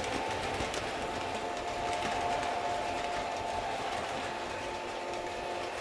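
O gauge model trains running on the layout: the steady whir of their electric motors and wheels rolling on the track, with a steady whine above it.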